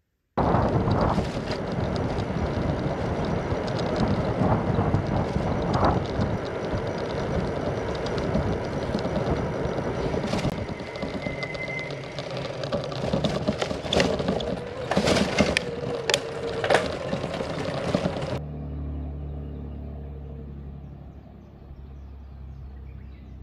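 Wind rushing over the microphone of a camera on a moving bicycle, with a few sharp knocks and rattles from the ride between about 10 and 17 seconds in. It cuts off suddenly about 18 seconds in to a much quieter low rumble.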